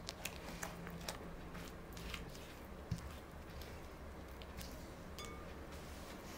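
Spatula folding thick cake batter in a glass bowl: soft wet squelches and light clicks against the glass, with one dull knock about three seconds in.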